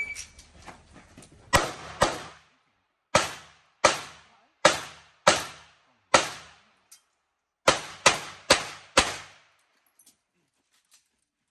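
Handgun fired eleven times during a practical-shooting stage: a pair about a second and a half in, two more pairs, a single shot, then a quick string of four, each shot with a short echo. It opens on the tail of the shot timer's start beep.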